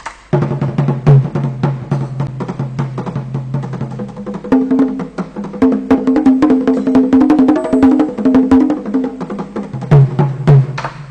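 Traditional Batak gondang ensemble playing a piece called for by the performer: fast, dense percussion strokes over a held melodic line that steps up in pitch about halfway through and drops back near the end.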